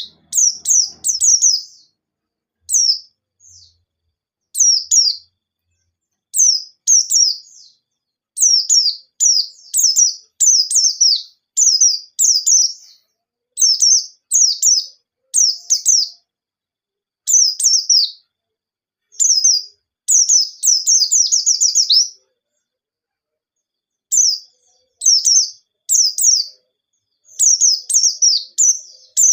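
White-eye (pleci) singing: quick, high, down-slurred chirps in short clustered bursts, with brief pauses between them and a longer pause of about two seconds about three-quarters of the way in.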